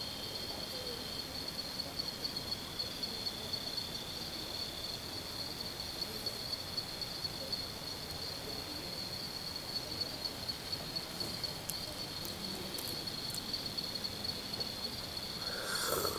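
Night insects chirping in a steady, fast-pulsing high drone at two close pitches, with a brief louder noise near the end.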